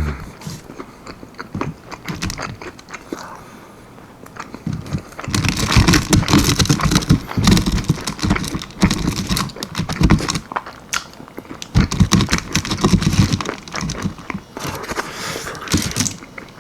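Close-up biting and chewing of almond-flour-battered baked chicken wings, with crunching from the dry breading; it grows louder and denser about five seconds in.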